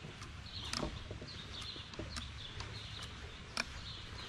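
Aluminium forearm crutches clicking and tapping on a paved path as a one-legged man walks on them, a sharp click roughly every second. Birds chirp in the background.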